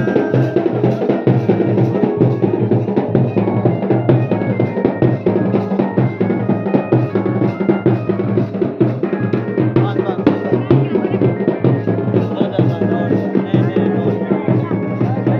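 Garhwali band baja and dhol-damau music playing live: steady, dense drumming with bass-drum and snare-like strokes, and a melody line stepping from note to note above it.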